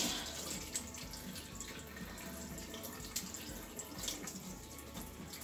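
Kitchen tap running into a stainless steel sink. The stream splashes over a doll's long hair and the hand rinsing it.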